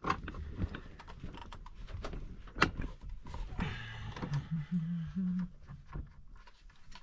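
Irregular light clicks and taps of a metal tool working at a truck's steering-wheel hub as the wheel is being unfastened for removal.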